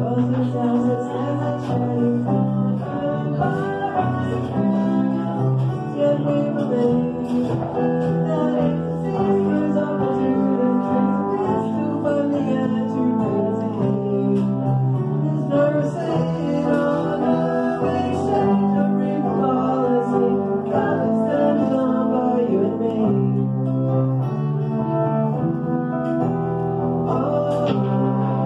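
Small live band playing a song without bass or drums: electric keyboard, acoustic guitar and trombone, with singing, picked up on an old phone's microphone.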